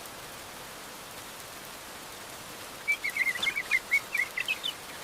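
Steady rain falling, with a small bird giving a quick run of short, high chirps from about three seconds in until near the end.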